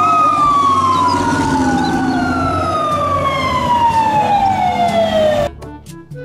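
Fire truck sirens: a wail sliding slowly down in pitch over about five seconds, with a second siren rising and holding steady under it, cut off suddenly near the end.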